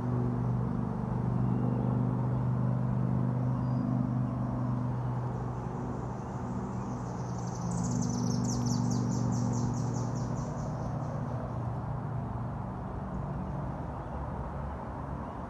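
Outdoor background: a motor hums steadily at a low pitch, fading after about eleven seconds. From about five to eleven seconds a high, rapid pulsing trill joins in.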